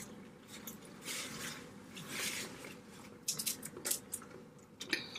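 Close-up eating sounds of a seafood boil: soft wet squishing and sucking, then a few sharp clicks in the second half.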